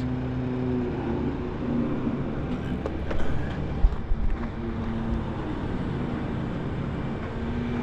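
An engine running steadily, with a few low thumps about four seconds in.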